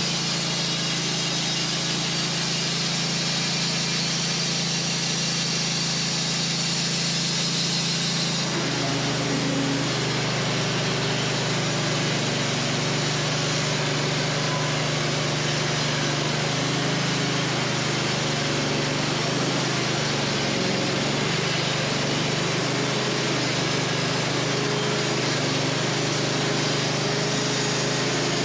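Wood-Mizer LT15 portable band sawmill running steadily and sawing through a hard maple log. Its note changes about eight seconds in.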